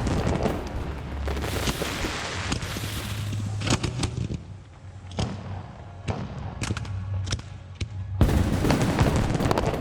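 Aerial fireworks bursting: a dense run of booms and sharp crackles, thinning to scattered cracks midway, then loud and dense again near the end.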